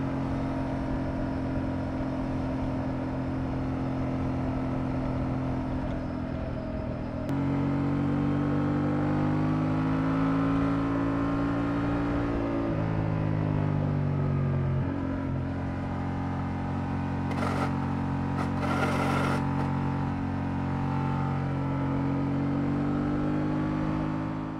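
Honda Transalp 750's parallel-twin engine pulling through a series of bends at road speed, heard from the rider's seat. The engine note jumps up about seven seconds in, rises and falls with the throttle, and drops in steps around the middle. There are a couple of brief rushes of wind hiss later on.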